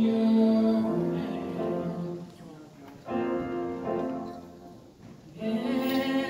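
A woman singing into a microphone with piano accompaniment, in three phrases of held notes with short breaks between.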